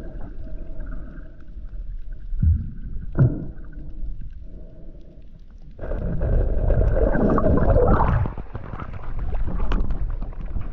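Water rushing past an underwater camera in a strong current over a shallow reef: a muffled rumble with a couple of short thumps, growing suddenly louder about six seconds in.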